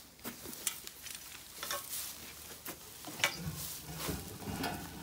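Straw bedding rustling and crackling, with scattered light clicks.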